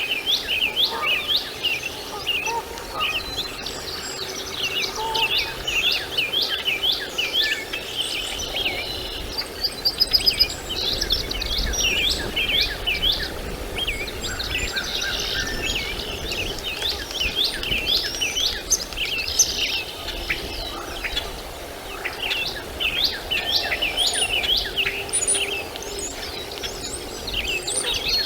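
Birds chirping: dense runs of short, quick, high chirps repeating throughout, over a steady background hum.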